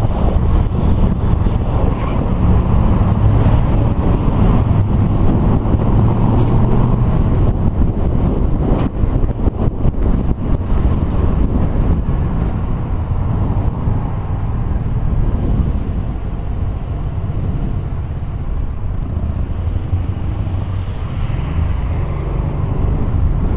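Motorcycle riding in traffic, heard from a camera mounted on the bike: steady low wind rumble on the microphone mixed with engine and road noise.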